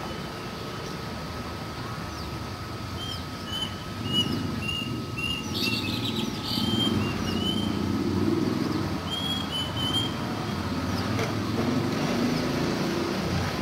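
Plaintive cuckoo calling: a run of short, clear whistled notes, then a shorter run of three notes a couple of seconds later. Under it a low rumble like distant traffic grows louder partway through, with a thin steady tone throughout.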